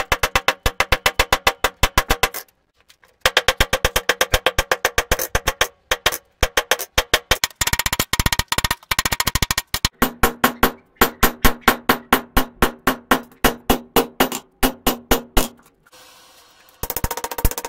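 Rapid hammer blows on hot steel over an anvil, several strikes a second, with the anvil ringing under each. The hammering stops briefly about two and a half seconds in and again near the end.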